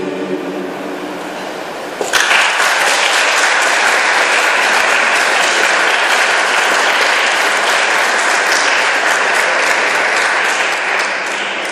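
A mixed choir's last chord dies away, then audience applause breaks out suddenly about two seconds in, holds steady and eases off near the end.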